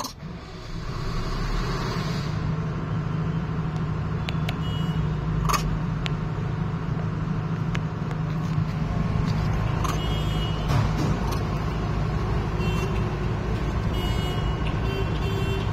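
A motor vehicle's engine running steadily, a loud low rumble with a hum, with a few short high-pitched tones at times.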